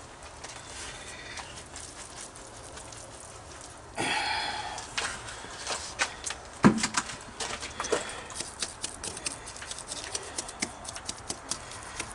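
A trowel scraping and tapping in leftover concrete mix: a ringing scrape about four seconds in, then a run of irregular sharp taps and clicks with one louder knock.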